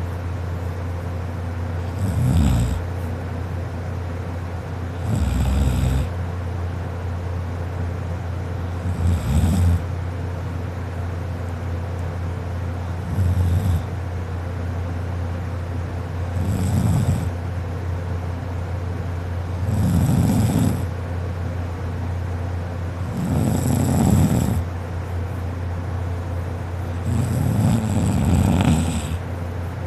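A woman snoring in deep sleep, kinda loud: about eight snores, one every three to four seconds, each a low rattle with a breathy hiss. A steady low hum runs underneath.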